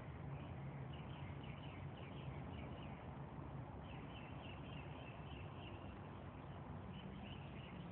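Faint birdsong: three runs of quick, high, repeated chirps, over a steady low hum.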